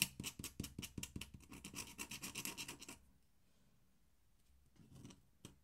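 Dip pen nib scratching across drawing paper in a rapid run of short ink strokes. The scratching stops about three seconds in.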